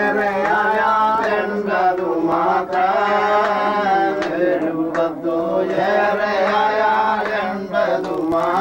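Slow singing of a Malayalam Christian devotional song about the Lord's coming, with long held, wavering notes.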